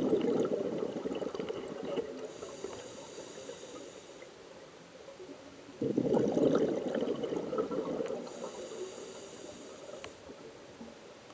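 Scuba diver breathing through a regulator underwater: a burst of exhaled bubbles at the start and again about six seconds in, each fading over a few seconds, with a faint hiss of the regulator on the inhale between them.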